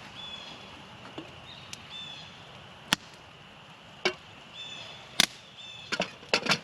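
Sharp knocks and clatter of camp cookware being handled while it is scrubbed clean: single knocks about three, four and five seconds in, then a quick run of louder clacks near the end.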